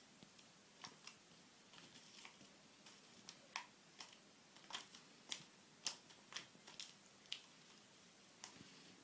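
Faint, irregular light clicks and taps, thickest in the middle, as a kitten's paws and claws bat at a dangled toy mouse.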